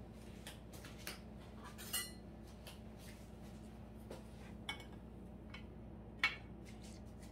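Scattered light clinks and taps of a metal serving spoon against a ceramic serving platter, the sharpest about six seconds in, over a faint steady hum.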